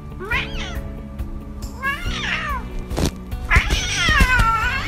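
Domestic cat meowing three times, the last meow the longest and falling in pitch, over background music.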